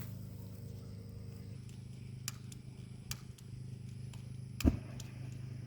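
A steady low hum, with a few faint clicks and one sharper knock about three-quarters of the way through.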